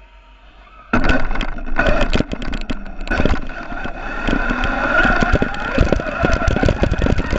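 Radio-controlled car running on tarmac, heard close up from ground level: faint at first, then, from a sudden jump about a second in, loud rattling road and tyre noise over a steady motor whine.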